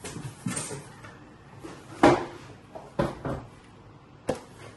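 Cardboard boxes being handled and set down on a tabletop: four dull knocks with a little scraping, the loudest about two seconds in.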